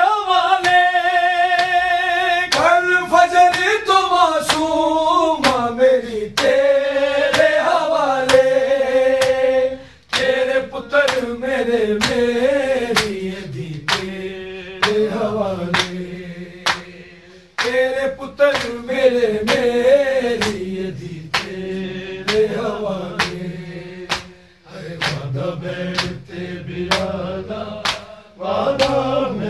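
Men reciting a Shia noha (mourning lament), one voice leading with the group joining, over steady rhythmic slaps of matam (chest-beating) that come about one and a half a second from about ten seconds in.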